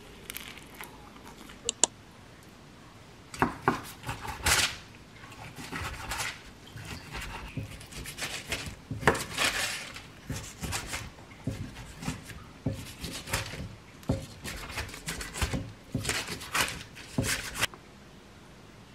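Kitchen scissors snipping raw chicken thigh into pieces on parchment paper: a long run of short, sharp cuts with handling noises, after a couple of light clicks near the start.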